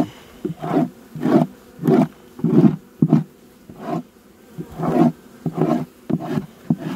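Gloved hand scraping mouse-nest debris across the wooden floor of an open beehive, in repeated rough strokes about one to two a second.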